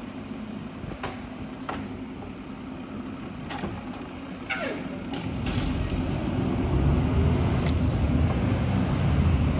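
Refuse truck's diesel engine running, with a few sharp clicks and a brief falling squeak about halfway. A deep low rumble grows louder in the second half.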